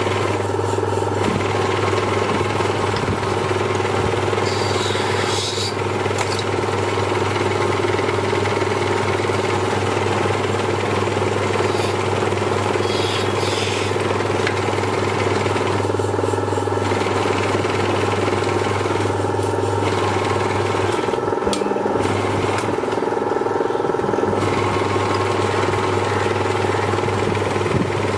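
Small lathe motor running steadily with a low hum, as a hand thread chaser cuts into the spinning ebonite pen section, adding brief higher scraping a few times.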